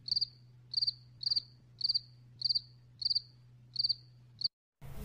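Cricket chirping: short, high, trilled chirps repeated evenly about every half second, cutting off suddenly near the end.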